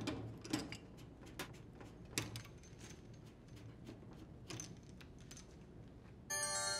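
Faint scattered clicks and scrapes of metal water-hose couplings being loosened with slip-joint pliers and unthreaded by hand from a washer's inlet valves. Near the end, a bell-like chime of several steady tones begins.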